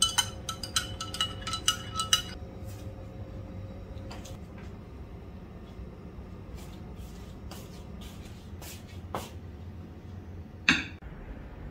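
Dishes and cutlery clinking: a run of about ten quick ringing clinks over the first two seconds, then a few lighter clicks and one louder knock near the end.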